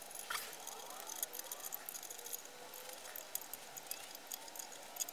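Scattered small clicks and rattles as a hydrofoil mast adapter and its screws are handled and fitted onto the mast by hand.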